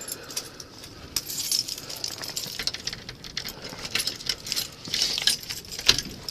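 Keys jangling and clicking in a rapid run of light metallic rattles, growing busier and louder toward the end.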